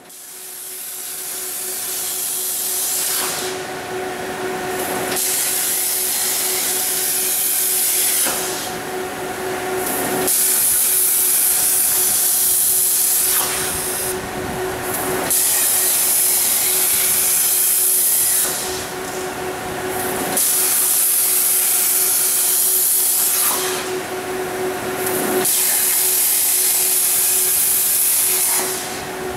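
Koike Aronson CNC plasma cutter cutting holes in steel plate: a loud, steady hiss of the plasma arc and air over a constant hum. The hiss drops away briefly about every five seconds as each hole is finished and the torch moves on to pierce the next.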